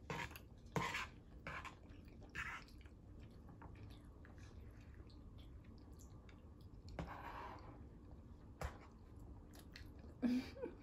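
Faint close-up chewing of soft macaroni and cheese, with a few short wet mouth sounds in the first couple of seconds, another around seven seconds, and a sharp click near nine seconds.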